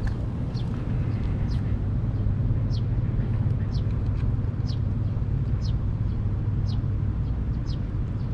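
A bird repeats short, high, falling chirps about once a second over a steady low mechanical hum.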